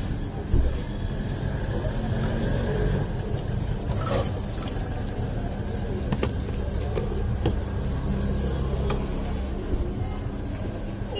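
Steady low rumble of street traffic, with a few sharp clicks scattered through it.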